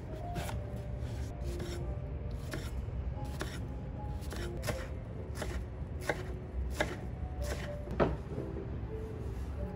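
Kitchen knife cutting through a white root vegetable onto a wooden cutting board: sharp knocks at a slow, even pace, about one every 0.7 seconds. A louder wooden knock comes about eight seconds in.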